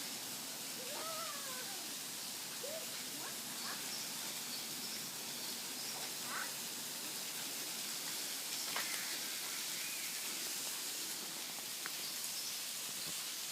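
Steady rushing hiss of a waterfall, with a few faint, short chirping calls scattered over it.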